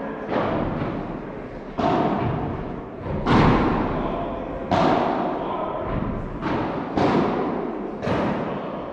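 A padel rally: the ball is struck back and forth with solid padel rackets, a sharp pop about every second and a half. Each hit rings on in the large hall.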